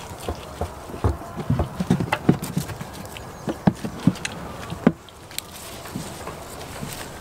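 Goats browsing on leafy branches: rustling leaves and tearing stems, with irregular sharp knocks of hooves and branches on a plastic tub. The knocks come thick and fast for the first five seconds, then thin out.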